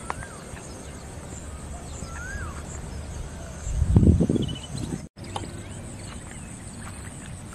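Evening outdoor ambience of small birds chirping and whistling over a steady high insect drone. About four seconds in there is a brief, loud low rumble.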